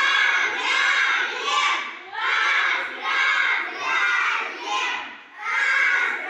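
A group of young children shouting together in unison, a run of loud chanted phrases each lasting about a second or so, with short breaks between them.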